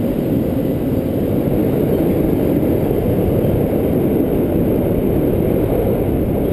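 Steady wind rushing over the microphone of a camera mounted on a paraglider wing in flight, a loud, low rumbling noise.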